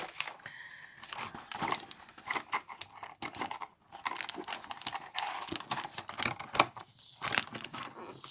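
Small packets and packaging being handled and torn open: irregular crinkling and crackling with bits of tearing.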